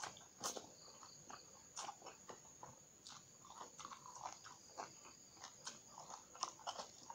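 Close-up chewing and crunching of a raw small round green eggplant (Thai eggplant): irregular crunches and wet mouth clicks, several a second.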